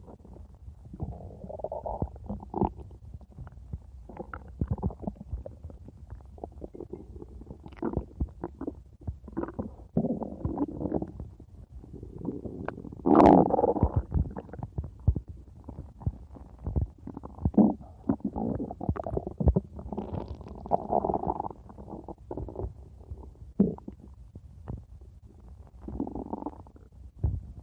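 A stomach growling and gurgling in irregular rumbles and short pops, with one loud, longer gurgle about halfway through.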